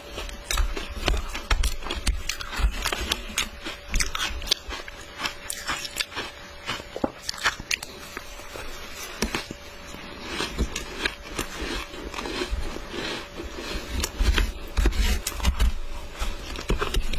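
Shaved ice being bitten and chewed with dense, irregular crunching cracks, mixed with a spoon scraping through the ice in a plastic tub.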